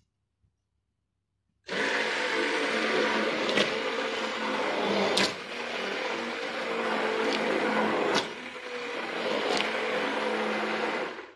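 Handheld stick blender running in a steel pot, mixing oils with potassium hydroxide solution to bring liquid soap batter toward trace. The motor switches on about two seconds in, runs steadily with a couple of brief dips and a few sharp clicks, and cuts off just before the end.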